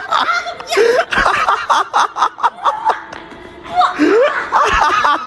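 People laughing and snickering in quick ha-ha pulses, with some talk mixed in.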